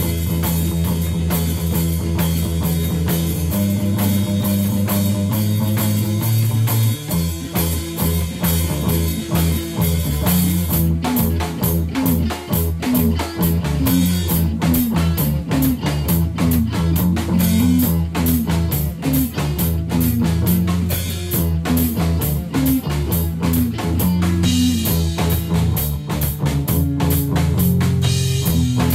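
Rock music with guitar and drums over sustained low chords; the drumming becomes busier about eleven seconds in.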